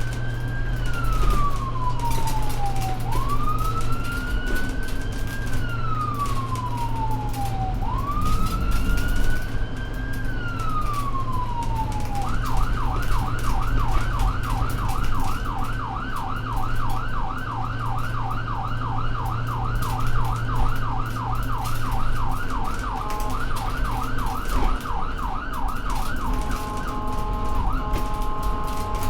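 Ambulance electronic siren over the low hum of the vehicle driving. It plays a slow rising-and-falling wail of about four seconds per cycle, and about twelve seconds in switches to a fast yelp of about three to four cycles a second. Near the end the yelp is broken by short, steady chord-like blasts.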